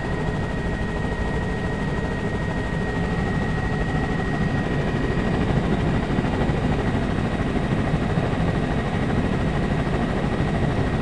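Steady engine and airflow noise heard from inside the cabin of a low-flying aircraft, with a thin high whine held at one pitch.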